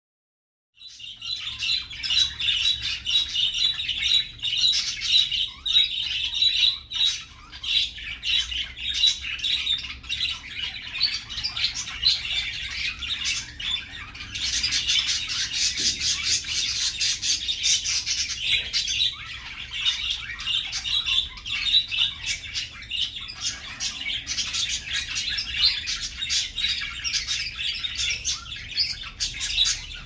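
Budgerigars chattering and warbling in a dense, continuous stream of high chirps and squawks, starting after about a second of silence.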